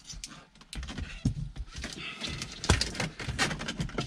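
Plastic split loom tubing around a wiring harness rustling and clicking as it is handled and pulled through the dashboard: an irregular run of small clicks.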